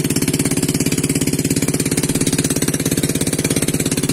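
Small boat engine running steadily at cruising speed, with a rapid, even pulse.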